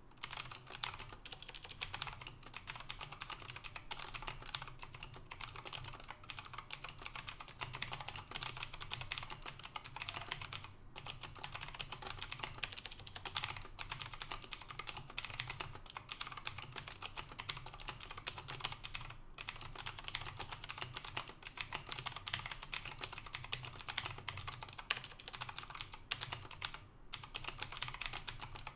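Typing on a Tsunami Outemu MK-03 mechanical keyboard: a fast, continuous run of key clicks, broken by a few short pauses.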